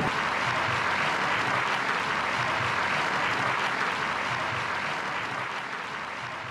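Concert audience applauding steadily, slowly fading out.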